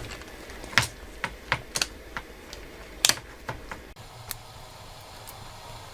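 Irregular light clicks and taps of small tools and parts being handled on a phone's mainboard, the sharpest about a second in and about three seconds in. A faint low hum comes in about four seconds in.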